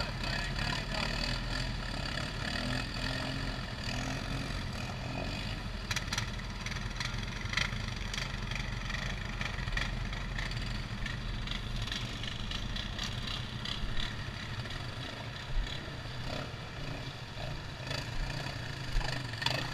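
ATV engine idling steadily, with a few scattered clicks and knocks. Near the end it grows louder as the machine pulls forward.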